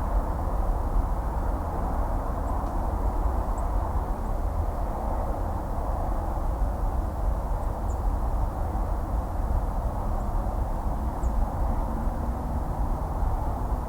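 Distant highway traffic: a steady, unbroken wash of tyre and engine noise over a deep rumble, with a few faint, short high chirps.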